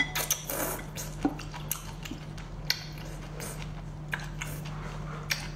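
Wet slurping, sucking and smacking as octopus tentacles are drawn into the mouth and chewed: irregular short clicks and squelches, the sharpest just after the start and again about one second in.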